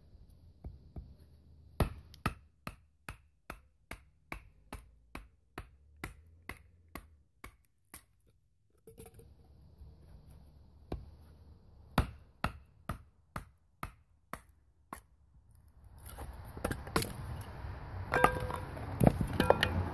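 A wooden baton striking the spine of a Schrade froe, driving the blade down into a block of wood to split it: a steady run of sharp knocks, about two or three a second, then a short pause and a second run. Near the end a louder steady noise takes over, with a few heavier knocks.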